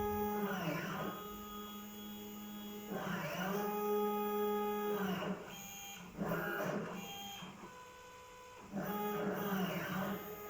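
Stepper motors of a home-built CNC machine whining through a series of moves. Each move's pitch rises as the axis speeds up, holds steady, then falls as it slows to a stop. One move ends about a second in, a longer one runs from about 3 to 5 s, a short one comes around 6 to 7 s, and another starts near 9 s, with quieter pauses between.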